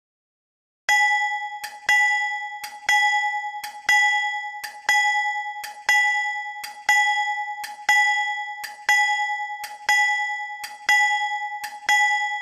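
Synthesized recreation of a General Electric locomotive steel bell, made with FL Studio's Wasp synthesizer, ringing steadily with reverb and no Doppler shift. It starts about a second in, with a strong strike about once a second, each followed by a softer one, and the tone rings on between strikes.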